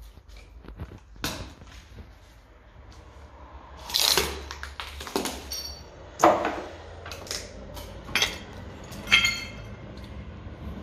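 Footsteps crunching and scraping over rubbish-strewn floor, about one step a second, with a few sharp clinks from debris underfoot.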